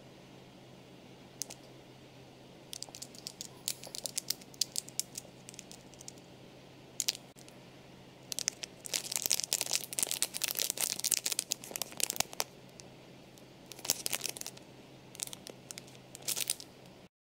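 Thin clear plastic packet holding a toy medal crinkling as it is handled, in scattered bursts with a longer stretch of dense crinkling in the middle, over a faint steady hum. The sound cuts off suddenly near the end.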